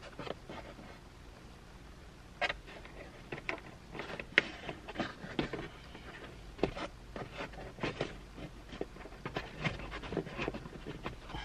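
Hands fitting plastic screw caps onto a plastic overhead sunglass holder: a run of irregular small clicks and taps with handling rustle, the sharpest click about four seconds in.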